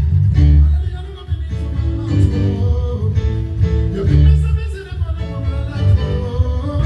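Live band playing a song, with singing over a heavy bass line.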